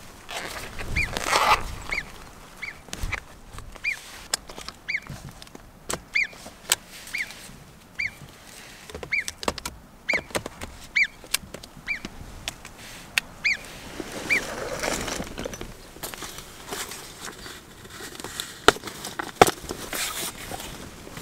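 Alpine marmot giving a series of short, high alarm whistles, one to two a second, which stop about two-thirds of the way through. Sharp clicks and rustling from gear being handled sound in between.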